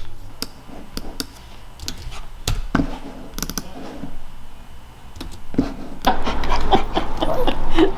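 Scattered light clicks and taps, then from about six seconds in a louder, busier stretch of noise.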